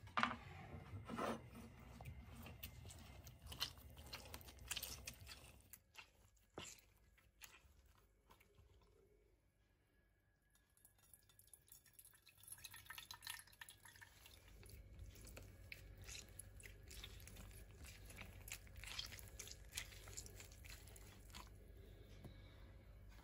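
Quiet kitchen handling: lemon juice poured into a stainless steel bowl and an orange squeezed on a glass citrus juicer, with small wet squelches, drips and clicks. A few sharper clicks near the start.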